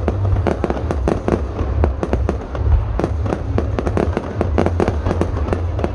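Fireworks display: many bangs and crackles in quick, overlapping succession, several a second throughout, over a continuous low rumble.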